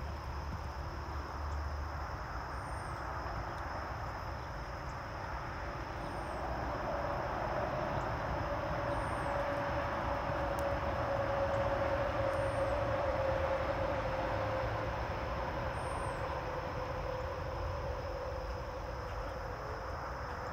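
Outdoor background with a steady high insect drone and a constant hiss; a distant engine hum swells gradually around the middle and fades again.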